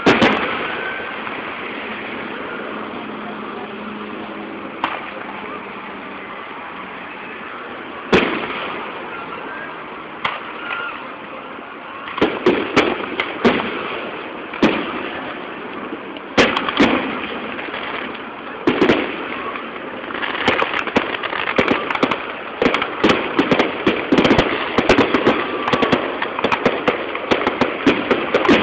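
Aerial fireworks display: a loud burst at the start and another about eight seconds in, then from about twelve seconds in a quickening run of sharp reports that becomes dense crackling near the end.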